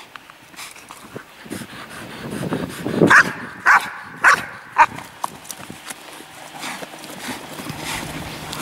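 Belgian Malinois barking four times in quick succession, a bark every half second or so, among lighter scuffling.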